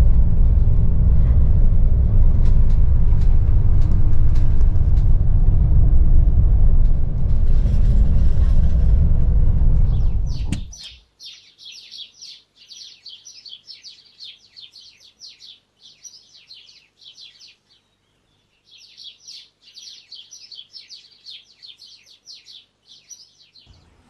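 Steady low rumble inside a travelling vehicle's cabin, cutting off abruptly about ten seconds in. Rapid high chirping follows, pausing briefly once.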